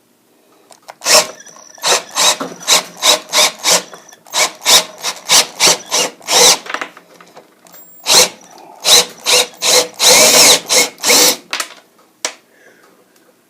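Power drill with an 11/16-inch bit boring into a soft lead water pipe, run in short spurts about two a second, with one longer run near the end.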